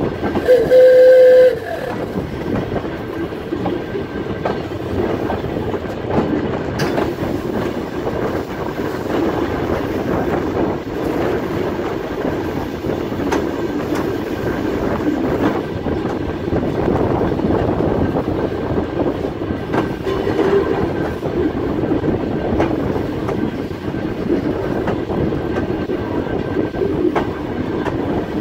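Volk's Electric Railway car running along its track: a steady rumble of wheels on the rails with scattered clicks at the rail joints, opened by one short, loud horn blast about a second in.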